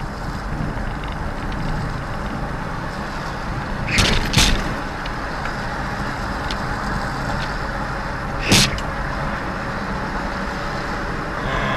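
Steady road and engine noise heard from inside a moving car through a dashcam microphone, broken by short sharp knocks: two close together about four seconds in and one more about eight and a half seconds in.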